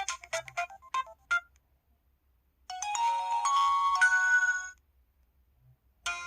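LG-SU420 mobile phone missed-call alert tones played back one after another. A quick run of short electronic notes ends about a second in. A chiming, bell-like alert of about two seconds follows, and another begins near the end.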